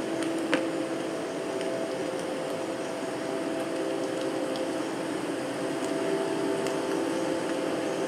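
Sound-art recording played over loudspeakers: a steady drone of several low held tones over a hiss, with a sharp click about half a second in.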